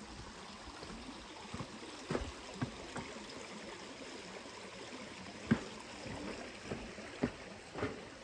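Steady rush of a creek with scattered short knocks and thumps, the sharpest about five and a half seconds in.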